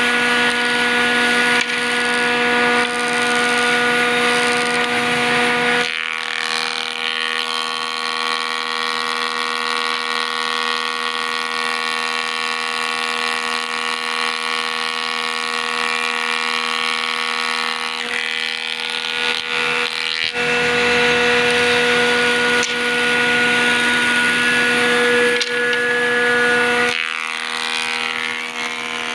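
Woodworking jointer machine running with a steady pitched hum while its side-mounted spindle cutter shapes curved wooden pieces. The sound is louder and rougher in the first few seconds and again about two-thirds of the way through, while wood is fed against the cutter.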